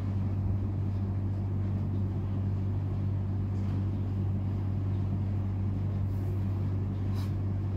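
Steady low mechanical hum, with a few faint, short scratches of a Parker Vector calligraphy fountain pen nib on paper as a small heart is drawn.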